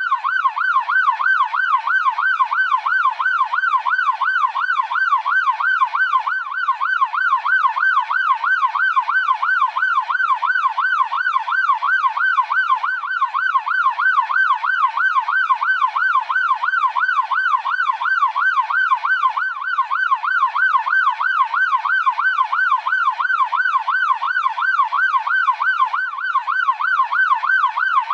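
Police car siren sounding a fast yelp: one loud tone sweeping up and down about three times a second, steady and unbroken.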